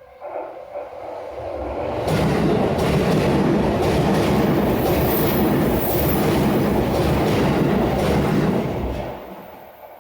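JR Nambu Line electric commuter train passing a level crossing: its running noise builds over about two seconds, stays loud with regular wheel clicks over the rail joints, and fades near the end. The crossing's warning bell rings faintly at the start and again as the train leaves.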